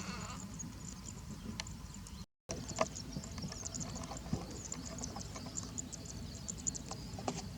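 Birds giving many rapid, short high chirps over a low steady rumble, with a brief complete break about two seconds in.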